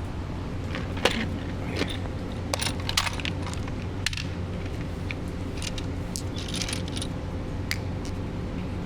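Scattered light metallic clinks and clicks of small parts and tools being handled during scooter air-filter work, over a steady low hum.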